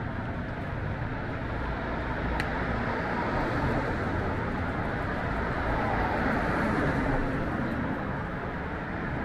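City street traffic noise: a steady wash of passing cars, with one brief click about two and a half seconds in.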